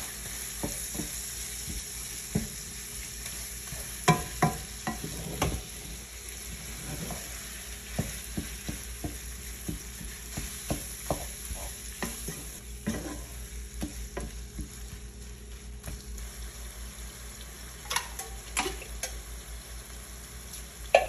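Ground meat with diced onion and green pepper sizzling in a frying pan with a steady hiss, stirred with a wooden spoon that scrapes and knocks against the pan now and then, with a cluster of knocks about four to five seconds in.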